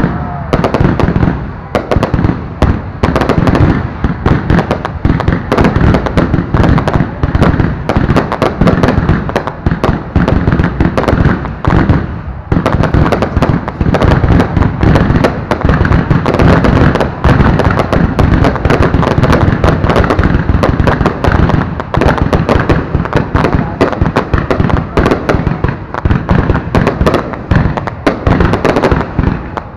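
Fireworks display: a dense, continuous barrage of loud bangs and crackling from bursting shells, many reports every second, with a brief lull about twelve seconds in.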